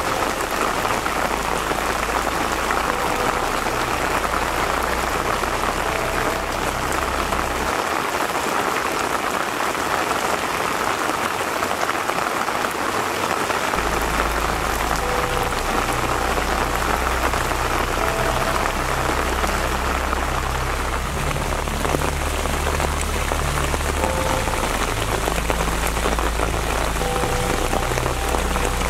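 Steady rain falling on wet ground, a continuous even hiss of drops.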